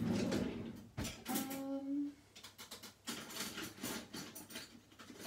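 Kitchen handling sounds: a sharp knock about a second in, then light clattering and rustling as things are moved about on the counter.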